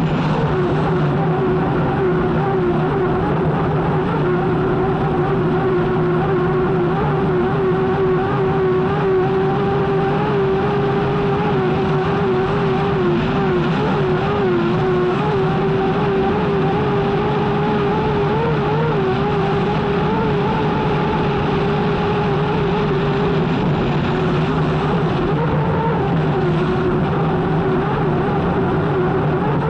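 Unlimited hydroplane's Lycoming T55 turbine engine running under way, heard onboard with dense wind and water rush: a loud, steady tone that wavers slightly in pitch.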